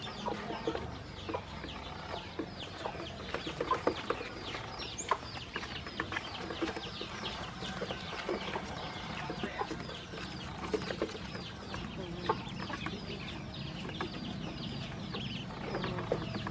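A group of ducklings peeping without pause, many short downward-sliding peeps overlapping one another, with scattered light taps mixed in.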